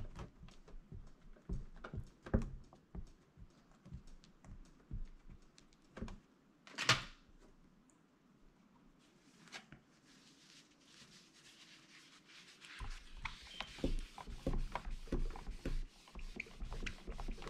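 Light scattered taps and knocks from stamping: a clear stamp being inked with black archival ink and pressed onto card in a MISTI stamp-positioning tool. One louder brief sound comes about seven seconds in, and quicker, denser tapping follows in the last few seconds.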